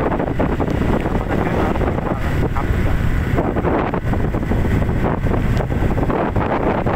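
Wind buffeting the microphone of a moving motorcycle: a loud, steady, fluttering rumble, with the hiss of tyres on wet asphalt under it.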